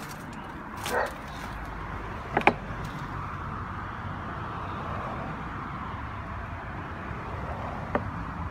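A dog barks once about a second in. A couple of sharp clicks follow soon after, and another comes near the end, over steady background noise.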